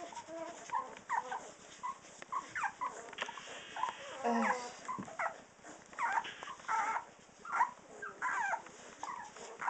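Three-week-old cocker spaniel puppies squeaking and whimpering in short, high calls, one or two a second, while nursing from their mother.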